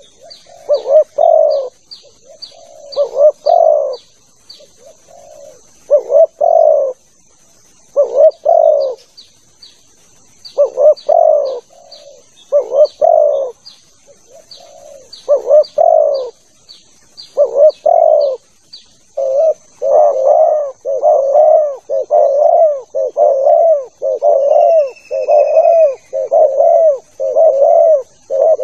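Spotted dove (tekukur) cooing: phrases of two or three rolling coos separated by short gaps, becoming an almost unbroken run of coos in the last third. Faint, quick high chirps sound behind the coos for much of the time.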